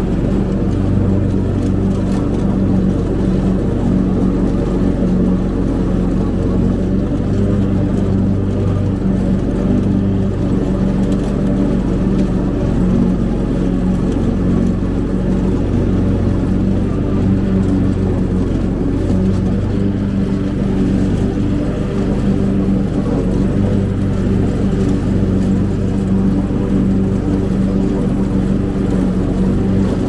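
Cub Cadet zero-turn riding mower's engine running at a steady speed while mowing tall pasture grass, with an even, unchanging pitch.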